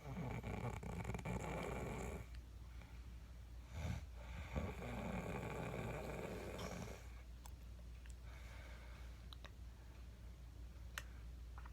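A woman snoring: two long snores, each about two seconds, the second starting about four seconds after the first, then a quieter stretch with a few faint clicks near the end.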